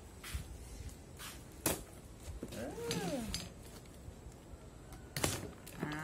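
A knife cutting the packing tape on a cardboard box and the flaps being pulled open: a few short sharp rips and scrapes, the loudest about two seconds in. A brief tone that rises and falls is heard about halfway through.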